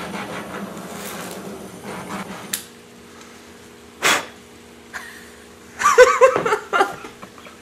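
A handheld butane kitchen torch hissing steadily for about two and a half seconds, then shut off with a click. About four seconds in comes a short, sharp puff of breath blown out, and near the end laughter.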